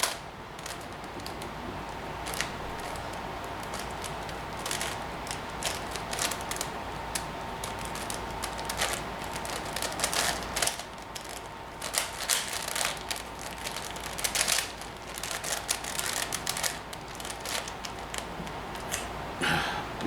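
Plastic clicking and clacking of a 5x5 Rubik's Professor cube being twisted by hand, in irregular runs of quick turns, over a faint steady hum.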